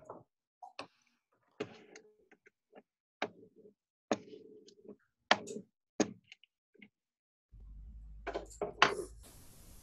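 Scattered clicks and light knocks from a sugar container and packets being handled over a food processor at a kitchen counter, with a few faint snatches of voice. A low hum with hiss comes in about three-quarters of the way through.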